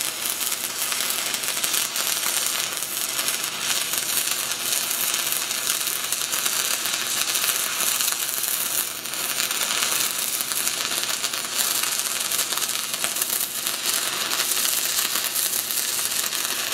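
6010 stick electrode arc crackling steadily during a downhill hot pass on steel pipe, run at about 86 amps.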